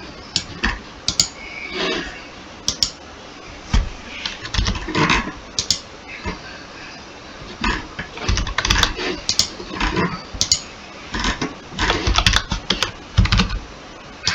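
Computer keyboard typing: irregular keystrokes and clicks, coming in clusters.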